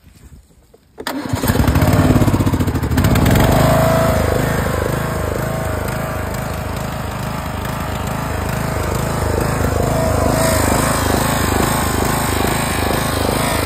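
Riding lawn mower engine cranks and catches about a second in, starting right up, then runs steadily with an even pulsing beat.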